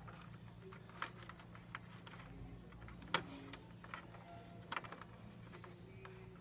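Scattered light clicks and taps of hands handling wires and plastic parts inside an air cooler's housing, about half a dozen, the sharpest about three seconds in, over a steady low hum.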